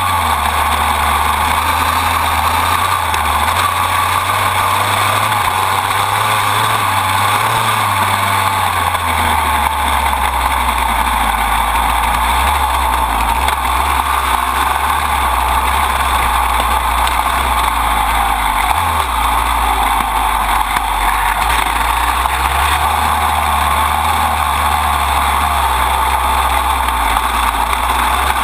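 Dirt bike engine running as the bike rides along a dirt track, heard from low on the swingarm beside the chain, mixed with rushing wind noise. The engine note shifts up and down with the throttle.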